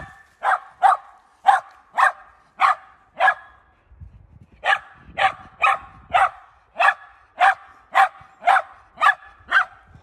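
Dog barking over and over, about two sharp barks a second, with a short pause about three and a half seconds in.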